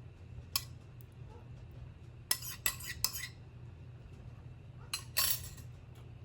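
Metal kitchen utensils and dishes clinking and clattering: one sharp clink about half a second in, a quick run of clatters around the middle, and another clatter near the end.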